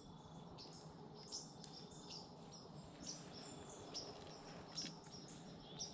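Small birds chirping: short, high chips about once a second over a faint, steady low hum.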